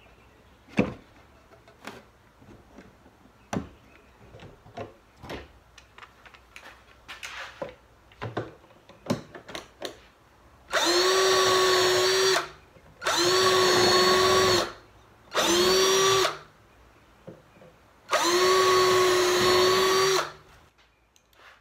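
Power drill working on a pine 2x4 frame in four runs of one to two seconds each, each at a steady pitch. Before it, about ten seconds of scattered clicks and knocks.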